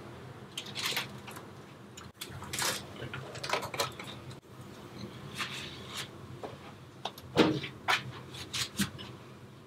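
Short handling knocks and scrapes a second or two apart: a foil-wrapped tray of skewered sausages lifted off a gas grill's grate and set down on a cork trivet, then more knocks, the loudest about seven and a half seconds in.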